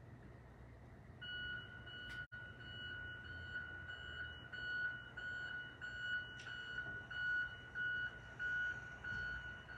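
Electronic alarm beeping outside at one steady high pitch, about two beeps a second, starting about a second in.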